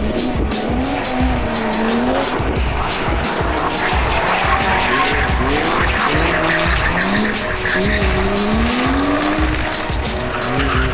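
Pickup truck drifting: its engine revving up and down while the tyres squeal and skid. Music with a steady beat plays over it.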